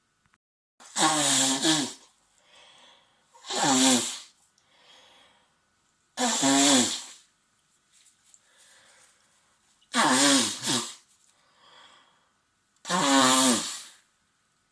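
A man with a cold sneezing five times in a row: wet, voiced sneezes about three seconds apart, with quieter breaths between them.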